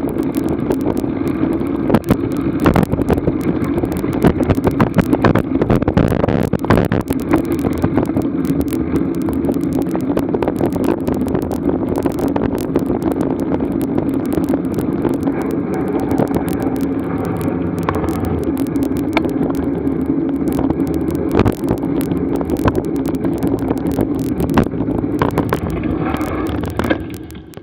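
Wind buffeting the action camera's microphone, with road noise, while riding at about 20–25 km/h: a steady rushing roar full of crackling pops, dying down near the end as the ride slows to a stop.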